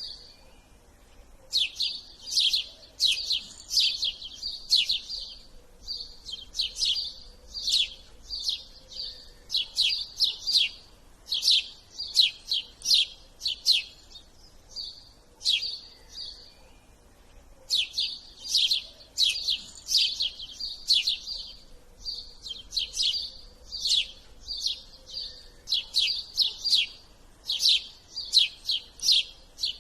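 Small birds chirping: quick runs of sharp, high chirps broken by short pauses.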